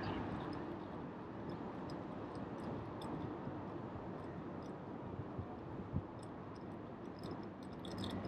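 Steady riding noise of a bicycle on a paved path, an even mix of tyre and wind noise, with faint light ticks and one short bump about six seconds in.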